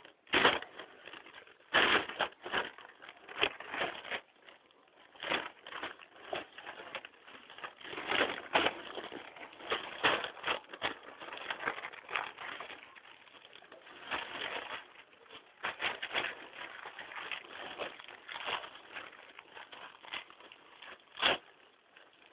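Newspaper rustling and crinkling as a small child handles it, a run of irregular crackles with a sharper one near the end.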